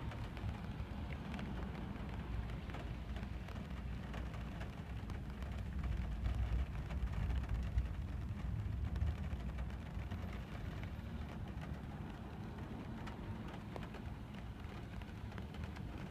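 Rain striking a moving car's windscreen, many small drop ticks over the steady low rumble of the car driving on a wet road, heard from inside the cabin. It grows a little louder in the middle.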